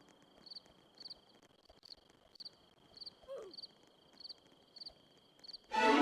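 Crickets chirping in a steady rhythm, about two chirps a second, over a continuous high trill, with one brief falling call about halfway through. Loud music cuts in near the end.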